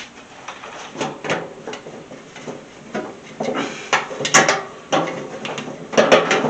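Handling noise: an irregular run of knocks, clicks and rattles as things are moved and set down, loudest about four seconds in and again just after six seconds.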